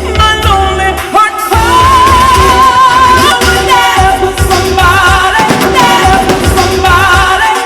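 A pop song with a lead singer and full band. About a second and a half in, the singer holds a long note with vibrato, over a steady beat of drums and bass.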